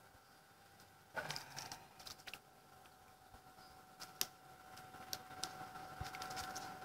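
Faint scattered clicks and ticks from handling a spinning rod and reel and setting the rod down in its rest, over a faint steady whine.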